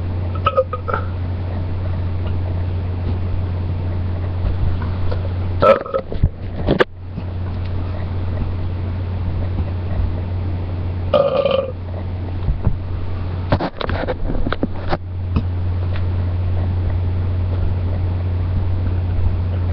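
A person belching several times, short separate belches spaced a few seconds apart, over a steady low hum, with a few sharp clicks and knocks in between.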